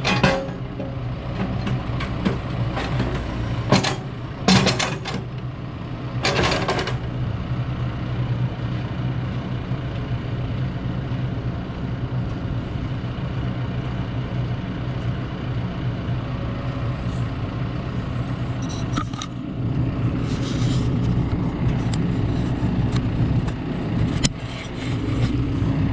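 A diesel engine idling steadily, with several sharp metallic clanks and knocks over it, a cluster in the first seven seconds and more around twenty seconds in.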